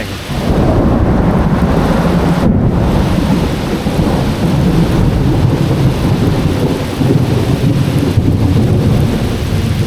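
Long rolling thunderclap rumbling deep and loud. It swells about half a second in and eases off near the end, over the steady hiss of heavy rain.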